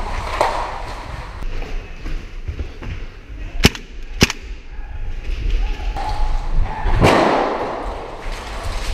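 Two sharp shots about half a second apart from a gas blowback airsoft rifle, over the rumble and knocks of a helmet camera moving with its wearer.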